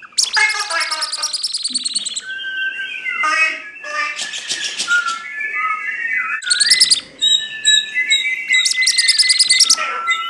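Bird-like chirping: bursts of rapid trills, about a second or two each, alternating with whistled notes that slide up and down.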